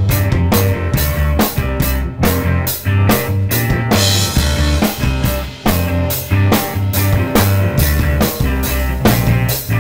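Loud rock music with a steady drum-kit beat and a bass line, with a cymbal-like wash of hiss about four seconds in.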